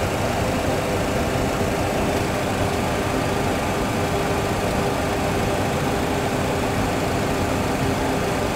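Steady simulated jet engine and airflow noise in a Boeing 737 full flight simulator cockpit, with a faint steady hum. Engine number 2 is shut down after a fire, so only engine number 1 is running as the aircraft climbs.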